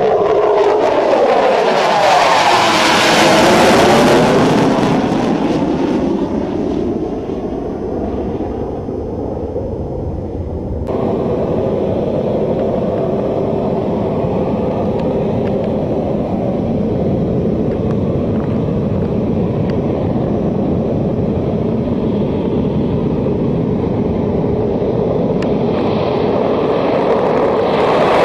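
HAL Tejas single-engine jet fighter passing overhead, its whine falling steeply in pitch as it goes by. Then, from about eleven seconds in, steady jet engine noise as the fighter runs on the runway for takeoff.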